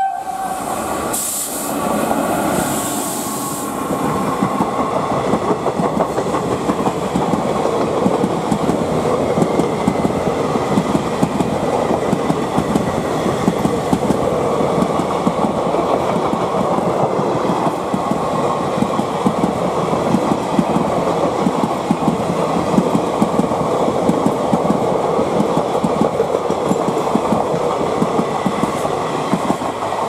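A very short horn toot from a WAP4 electric locomotive right at the start. Then the locomotive and its passenger coaches pass close by, the wheels clattering steadily over rail joints for the rest of the time.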